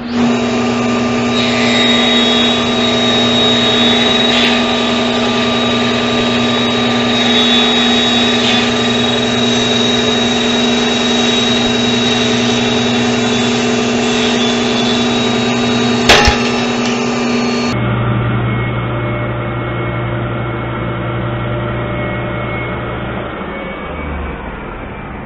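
A table saw starts up and runs with a steady hum while a board is fed through the blade. About sixteen seconds in there is a single sharp crack as the workpiece kicks back. The saw then runs on, slowly quietening as it winds down.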